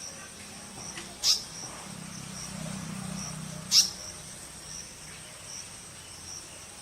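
Insects chirping steadily in the background, a high pulse repeating a little more than once a second. Two short, sharp sounds sweep down in pitch, about a second in and near the middle, louder than the chirping.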